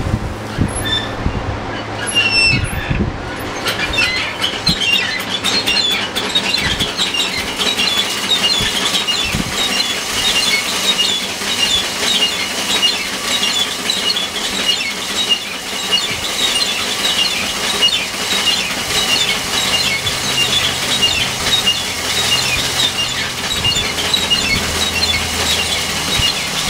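Small thresher's spinning wire-toothed drum beating and stripping grain heads held into its hopper: a dense, continuous rattling and scratching that starts a few seconds in, over the machine's low running hum.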